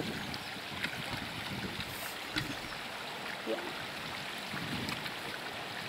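Small stony stream running and splashing as a person kicks around the stones of the streambed for a kick sample, with a few short knocks of stones being dislodged.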